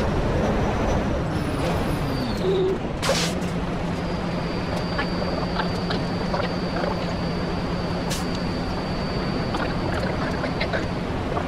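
Semi-truck diesel engine slowing down and settling to a steady idle. A short air-brake hiss comes about three seconds in, and a faint high whine runs through the idle.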